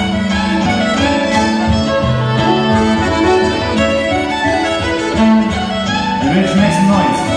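Irish traditional tune played live on fiddle, accordion and acoustic guitar, the fiddle carrying the melody over strummed guitar.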